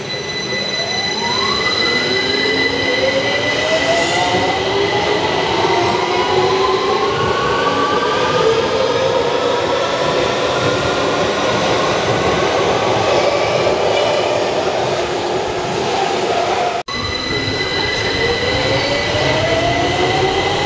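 London Underground tube train pulling out of the platform, its traction motors whining in several rising tones as it speeds up, over a steady high-pitched tone. A cut near the end brings in a second tube train starting off with the same rising motor whine.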